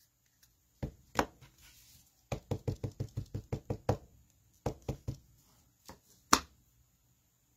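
Ink pad tapped against a clear stamp on an acrylic block: a quick run of about a dozen light taps, then a few more. Near the end comes a single louder knock.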